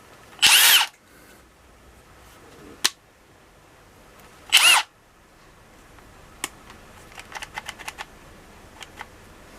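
Milwaukee M12 FUEL compact impact wrench's brushless motor given two brief unloaded trigger pulls, about four seconds apart, each spinning up and winding straight back down. A run of light clicks follows near the end.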